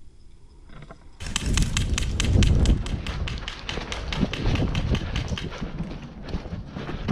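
Fast running footsteps crunching over dry grass and leaves, a quick even patter of footfalls that starts about a second in, with low rumbling on the microphone underneath.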